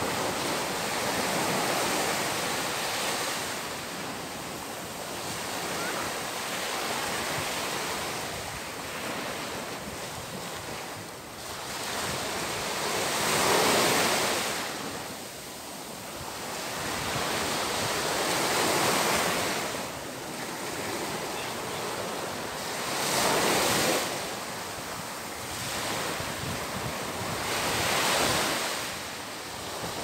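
Small waves breaking and washing up a sandy beach. The surf swells and ebbs, with a louder surge about every five seconds.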